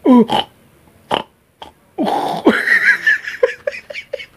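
Men's wordless voice sounds: a short exclamation right at the start, then a longer drawn-out vocal sound about two seconds in, running into a string of short laughing pulses near the end.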